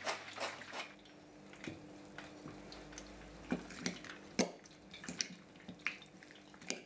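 A spoon mixing sliced potato salad in a glass bowl: soft wet squelches and scattered clinks and scrapes of the spoon against the glass. It follows a quick run of clicks from a pepper mill at the start, all over a faint steady kitchen hum.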